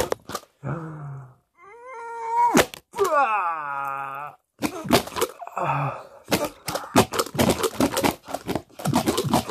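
Drawn-out groaning voice sounds that slide down in pitch, made through frog-face masks, then a quick run of clicks and taps as the party-blower tongues flick out and knock at standing cardboard cards.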